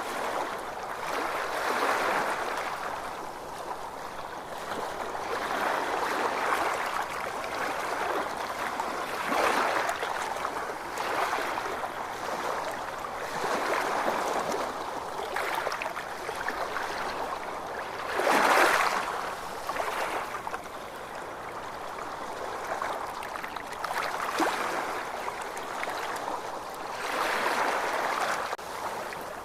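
Ocean waves washing in, a steady rushing wash that swells and eases every few seconds, with one louder wave about two-thirds of the way through.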